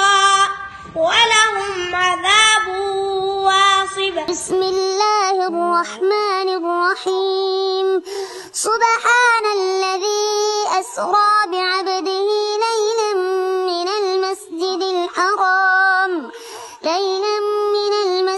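Young boys reciting the Quran in a melodic chant, with long held notes bent into ornamented turns and short pauses for breath. A low background rumble under the first voice stops about five seconds in, where a second boy's cleaner, closer voice takes over.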